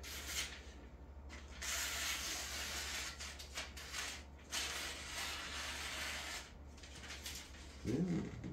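Phone book paper rustling and scraping as it is drawn against a katana blade, in two long passes with shorter scrapes between them. The blade's factory edge is dull.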